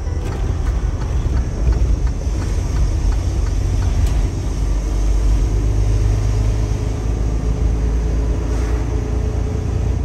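Semi truck driving, heard inside the cab: a steady low rumble of engine and road noise.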